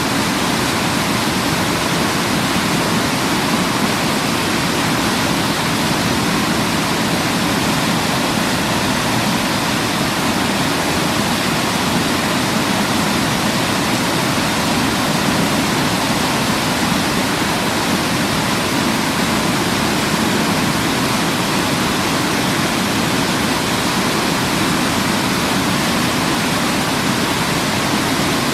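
Waterfall, a steady unbroken rush of falling water that stays the same throughout.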